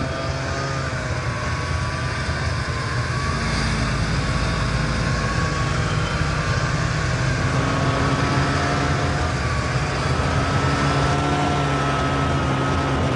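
Over-snow vehicle engine running steadily under way: a steady low drone with a thin, slightly wavering whine above it.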